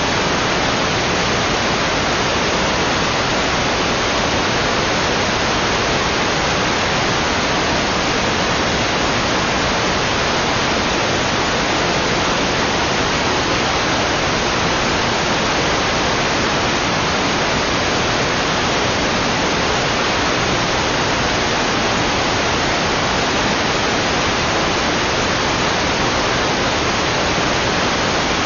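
Loud, perfectly steady static hiss spread evenly from low to high pitch, with no changes at all. It cuts in suddenly just before and is electronic noise on the audio feed rather than a sound in the scene.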